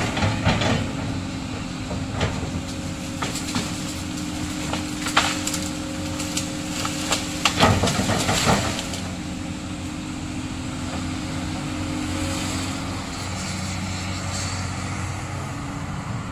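Komatsu PC200 hydraulic excavator's diesel engine running steadily, with a scattering of sharp cracks and knocks over it, loudest and densest about eight seconds in.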